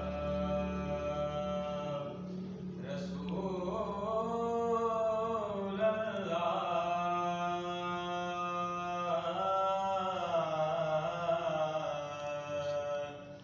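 A man's voice chanting a slow, melodic devotional recitation, holding long notes that slide gently between pitches, with a short pause for breath about three seconds in.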